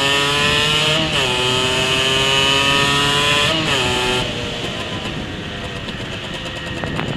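Rieju SMX 50cc two-stroke moped engine on its standard exhaust, pulling hard with a rising whine that dips briefly at gear changes about a second in and about three and a half seconds in. Just past the middle the throttle closes and the engine falls back to a lower off-throttle note.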